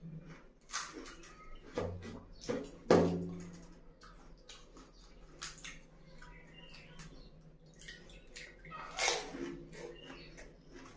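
Close-up eating sounds of pani puri: wet chewing, slurping and lip smacks, with sharp crunching bursts. The loudest comes about three seconds in, and another about nine seconds in.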